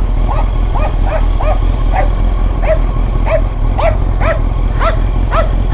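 A dog barking over and over, two to three short barks a second, over a steady low rumble.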